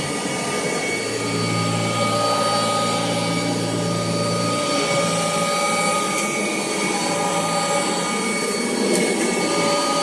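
1984 Kirby Heritage II upright vacuum cleaner running steadily, its motor giving an even whine.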